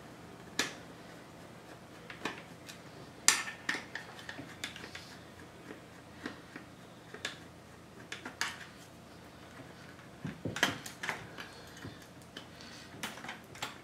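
Scattered small metallic clicks and taps of a screwdriver working screws and handling the sheet-metal chassis parts of a Lenovo ThinkCentre Edge 92Z all-in-one computer. The loudest click comes a little over three seconds in, and a cluster of clicks comes near the end.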